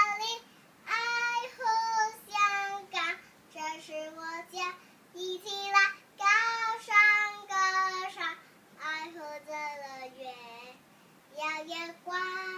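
A young girl singing unaccompanied, in short sung phrases with brief pauses between them.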